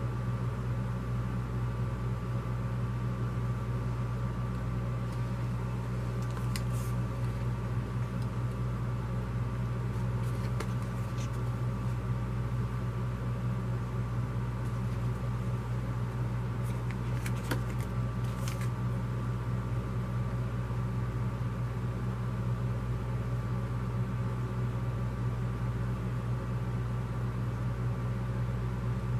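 A steady low electrical or mechanical hum with a faint higher steady tone, like a room appliance or fan running, with a few faint crackles of paper flyers being handled near the middle.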